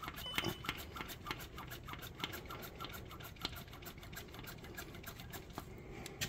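Quick, even clicking, about four a second, as the diesel fuel transfer pump is worked by hand to purge air from the fuel system.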